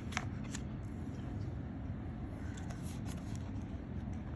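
A few soft clicks and rubs from a new iPhone and its packaging being handled, over a steady low background hum.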